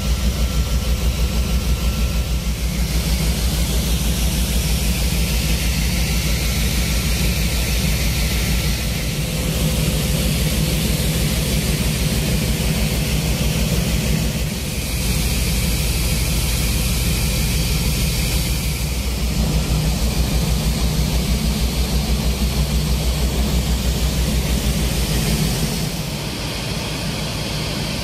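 Aircraft engine noise, loud and continuous, with a fast steady low throb and a wash of hiss above it; it eases slightly near the end.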